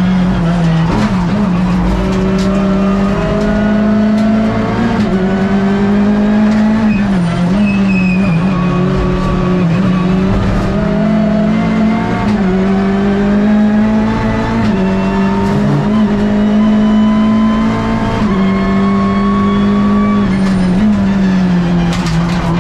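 Hyundai i30 N TCR race car's turbocharged four-cylinder engine at racing speed, heard from inside the stripped cockpit: the revs climb steadily and drop back at each gear change, several times, over a loud, steady drone.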